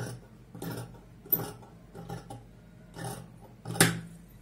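Dressmaker's scissors snipping through fabric on a table: a run of about six cuts, roughly one every 0.7 s, the loudest snip near the end.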